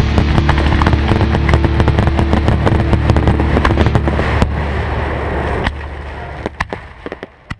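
Fireworks crackling densely with rapid pops over a low steady drone. From about halfway the drone fades and the crackle thins to a few separate sharp bangs, the last near the end.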